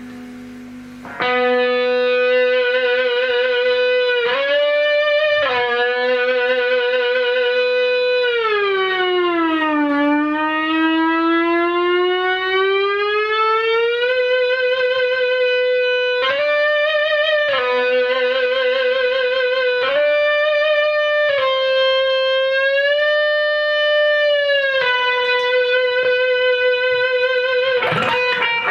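Fernandes Revolver Pro electric guitar with a Fernandes Sustainer, played distorted through a Marshall JMP-1 preamp: single notes held for many seconds without dying away, with a fast vibrato. About a third of the way through, one held note slides down nearly an octave and then slowly climbs back.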